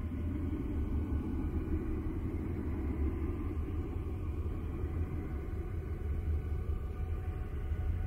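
Steady, low droning rumble with faint steady tones above it, presented as the sound of Uranus's moon Miranda: space-probe radio and plasma-wave data turned into audio.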